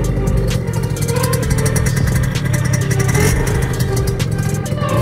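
Piaggio Zip scooter's tuned 70cc single-cylinder two-stroke engine running under way at a fairly steady pitch, with frequent sharp clicks and rattles from riding over gravel.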